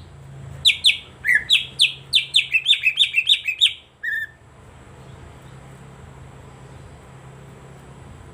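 Greater green leafbird (cucak ijo) singing a quick run of about ten sharp, downward-sliding whistled notes for some three seconds, then a single note. The song stops about four seconds in, leaving a faint low hum.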